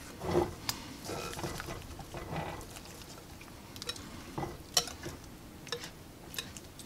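Wire whisk stirring thick tomato sauce in a glass bowl: soft, irregular wet swishing with a few light clicks.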